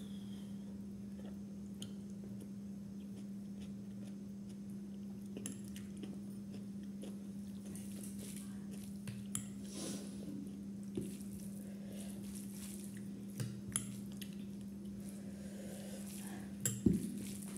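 Eating sounds: a steel spoon clinking now and then against a bowl and plate, with chewing, the loudest clinks coming about a second before the end. A steady low hum runs underneath.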